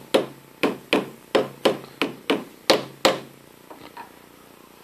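A hammer tapping a steel milling vise on a lathe's milling attachment, about three sharp metallic taps a second, to seat it square against 1-2-3 blocks set off the chuck. The taps stop about three seconds in, with two faint ones after.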